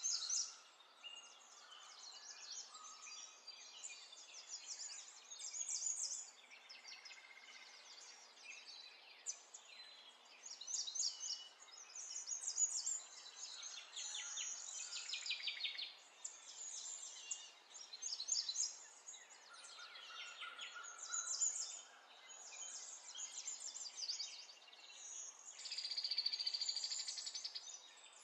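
Several small birds singing and chirping in short repeated phrases over a faint outdoor hiss, with a dense buzzy trill near the end.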